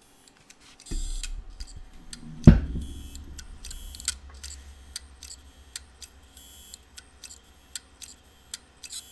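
Toshiba hard drive powered up after a head swap: a low hum starts about a second in, a loud knock comes soon after, and then the heads click over and over. The drive cannot read its badly damaged platter, even with the new head.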